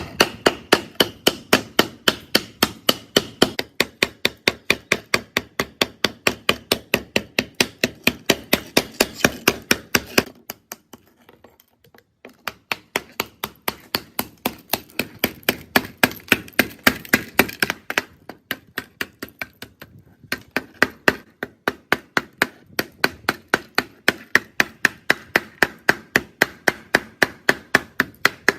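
Hammer blows struck in a fast, steady rhythm, about four a second, with a pause of about two seconds about a third of the way through and a brief break near the end.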